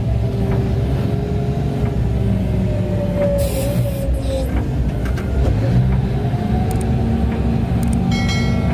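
Mining haul truck's diesel engine and drivetrain running steadily under way, heard from inside the cab: a deep rumble with a whining tone that drifts slowly in pitch. A brief hiss about three and a half seconds in, and a short bright chime near the end.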